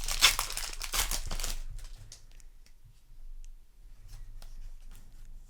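A foil booster-pack wrapper crinkling and tearing open for about the first second and a half, then softer rustling and flicking as the trading cards are handled.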